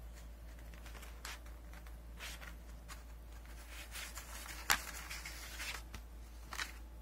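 Paper rustling as a printed leaflet is handled and lifted, in a few short scrapes and crinkles, with one sharp tap about two-thirds of the way through. A steady low hum sits underneath.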